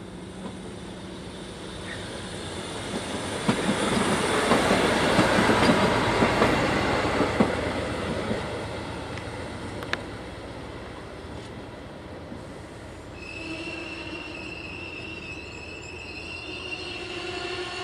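Koleje Dolnośląskie regional train passing close along the platform, its wheels running on the rails, loudest about four to seven seconds in and then fading away. From about thirteen seconds in a steady high-pitched wheel or brake squeal comes from a second train approaching.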